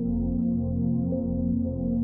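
Background music: slow ambient synthesizer pads holding sustained low chords.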